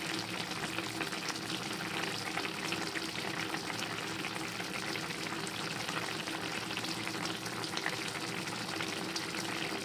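Pan of paksiw na bangus (milkfish pieces in a sour broth with tomato, chili and peppercorns) simmering, a steady dense crackle and sizzle of small bubbles.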